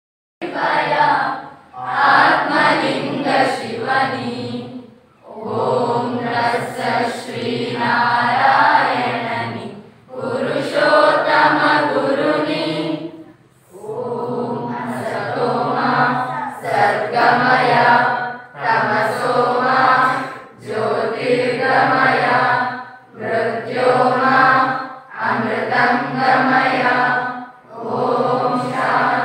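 A group of voices chanting a prayer in unison, in phrases of two to four seconds with brief pauses between them.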